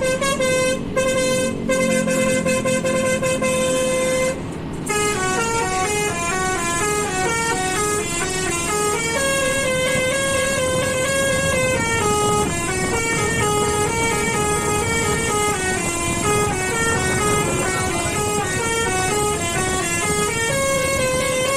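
Basuri musical bus horn playing a tune. It starts on a held note broken by two short gaps, pauses briefly about five seconds in, then runs through a long string of notes stepping up and down.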